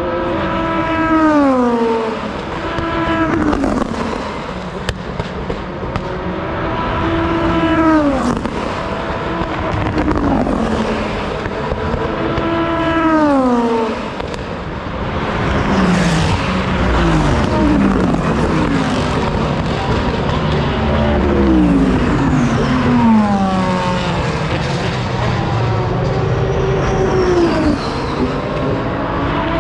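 Sports-prototype and GT race cars passing one after another at full speed, each engine note dropping sharply in pitch as the car goes by. There are about ten passes, some a second or two apart and others closer together.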